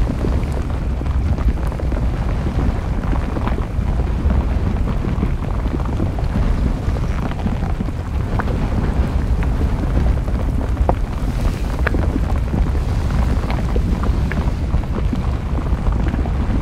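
Steady low rumble of an erupting volcano and its lava flow, with scattered sharp cracks and pops, mixed with wind noise on the microphone.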